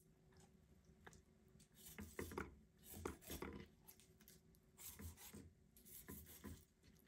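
Faint, scattered scrapes and soft knocks of a chef's knife scoring the skin of a whole red snapper on a wooden cutting board, with the wet fish handled and laid down on the board.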